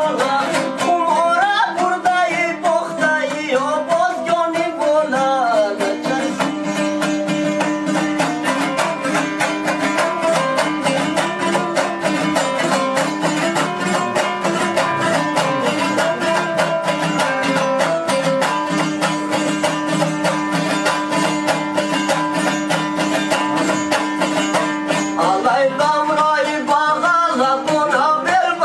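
Hazaragi dambura, a two-string long-necked lute, strummed fast and rhythmically while a man sings a love song over it. The voice stops about six seconds in for a long instrumental strumming passage and comes back near the end.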